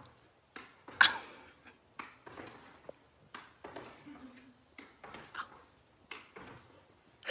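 Short, sharp knocks and clicks from a pet leaping and landing indoors, coming roughly once a second, the loudest about a second in.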